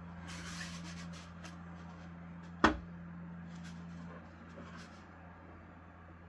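Hands handling a plastic 3D print: rustling and scraping in the first second, a few light clicks, and one sharp loud click about two and a half seconds in, over a steady low machine hum.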